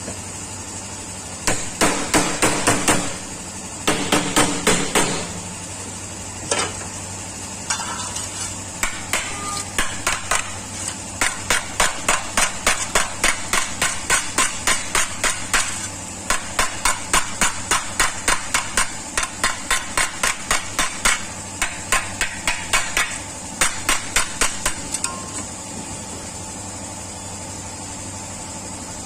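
Hand hammer beating out a dent in the sheet-steel body panel of a Maruti 800. It strikes in quick runs of about four blows a second with short pauses between the runs, and each blow rings metallically.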